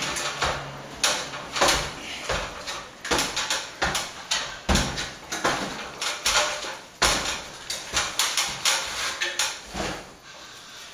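Plastering trowel scraping and clacking against a hawk and the wall as sand-and-plaster mix is loaded and worked into an electrical wall chase: a quick, irregular run of scrapes and knocks that dies down near the end.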